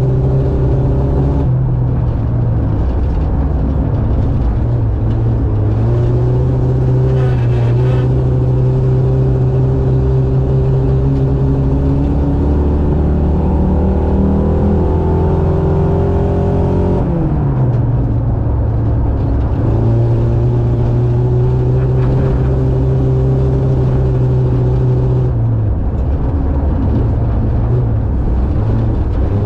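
Race buggy's Suzuki GSX-R600 motorcycle engine running hard at a fairly steady speed, its pitch dipping and picking up again a few times as the throttle is let off and reapplied.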